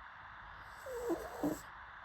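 A sleeping pug snoring briefly: two short, pitched, nasal sounds in quick succession about a second in.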